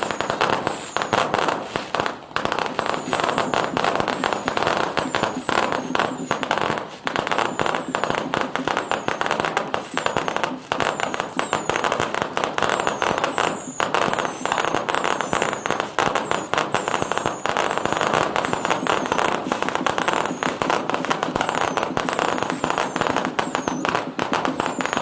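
Fireworks going off in a rapid, unbroken string of bangs and crackles, with short falling whistles overhead.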